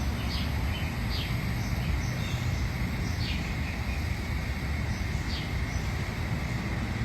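A bird chirping: short, quick falling chirps every second or two over a steady low rumble, with a faint steady high tone.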